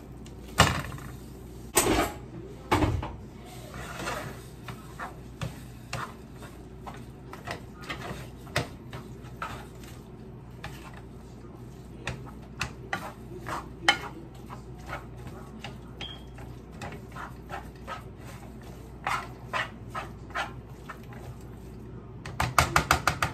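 Raw ground beef dropping into a frying pan, then a spatula scraping and knocking against the pan as the meat is broken up. A few heavy thumps in the first three seconds, then scattered light clicks and scrapes, and a quick run of knocks near the end.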